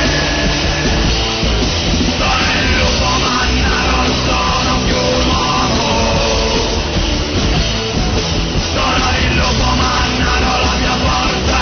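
Loud punk rock song with a full band and drum kit, an instrumental stretch between sung lines.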